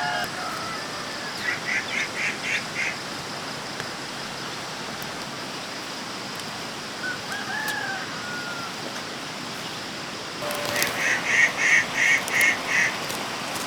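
A bird calling in two runs of short, evenly repeated notes, about four or five a second: a weaker run near the start and a louder one near the end, with a few short gliding calls between and a steady hiss underneath.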